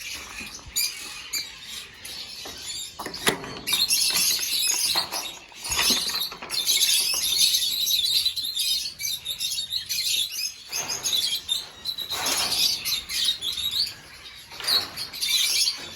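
A flock of lovebirds chattering: dense, high-pitched twittering that swells and dips, with brief lulls around the middle and near the end.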